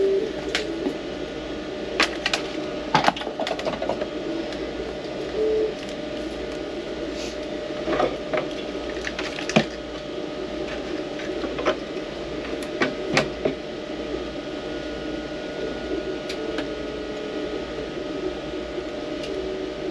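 Scattered sharp clicks and knocks of 3D-printed plastic parts being handled, over a steady mechanical hum.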